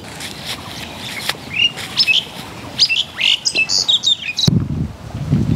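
Small birds chirping and twittering in quick, sharp, high calls. About four and a half seconds in, the chirping cuts off abruptly and a deeper, pulsing sound begins.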